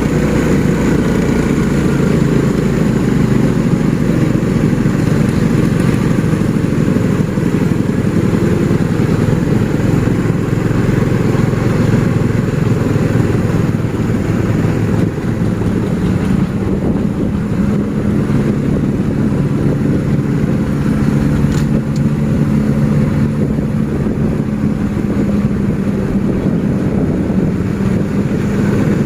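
Motor vehicle engines running steadily on a mountain climb, a continuous low engine hum whose steady tone grows stronger about halfway through.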